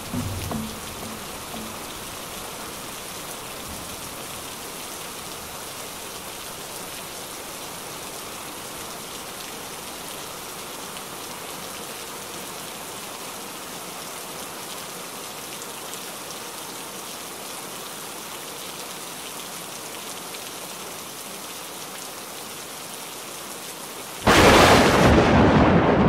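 Recorded thunderstorm: steady, even rain, then near the end a sudden loud clap of thunder.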